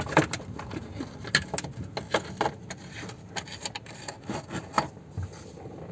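Scattered, irregular clicks and light knocks with rubbing, from hands and tools working on fasteners under a car as a bolt is threaded in.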